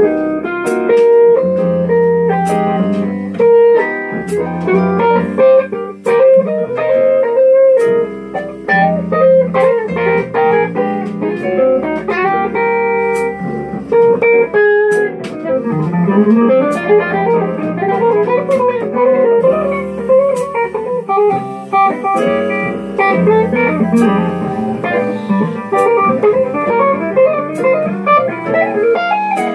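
Solid-body electric guitar playing a bluesy melody line with chords, with notes bent and slid in pitch, such as a rising slide about halfway through.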